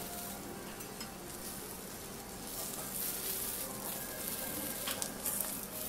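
Green peppers sizzling in oil on a hot teppanyaki steel griddle, a steady hiss that swells a little about halfway through. A few sharp clicks of the metal spatulas come near the end.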